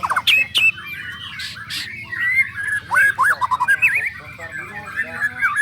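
White-rumped shamas singing: quick, varied whistles, rising and falling chirps and short rattles from several birds at once, overlapping, with a steady held whistle near the end.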